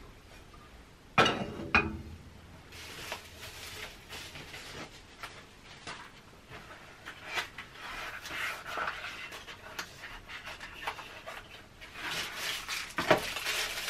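A new frying pan set down on the gas stove's metal grate with two clanks about a second in, followed by the rustling and crinkling of bubble wrap and cardboard packaging being handled and unwrapped, louder near the end.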